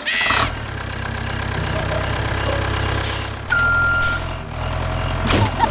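Vehicle engine running steadily, with a single high-pitched beep lasting under a second about three and a half seconds in, and short hissing bursts around it.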